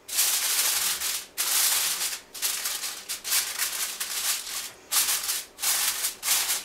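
Sheet of aluminium foil crinkling as it is pressed and crimped down over a dish, in a run of rustling bursts.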